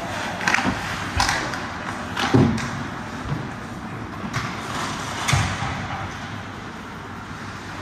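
Ice hockey play: about half a dozen sharp knocks and thuds from sticks, puck and boards, the loudest about two and a half seconds in, over steady rink noise.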